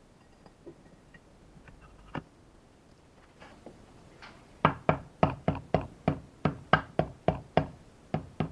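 Mallet tapping the cylinder liners of a Skoda 105 engine down into the block, seating them on their copper sealing rings. Faint clicks of handling, then a little past halfway a steady run of sharp knocks, about three a second.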